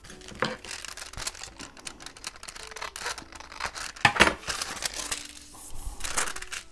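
Paper handling on a tabletop: a window envelope and sheets of patterned paper being picked up, slid and laid down. Short rustles and light taps, loudest about four seconds in and again about six seconds in.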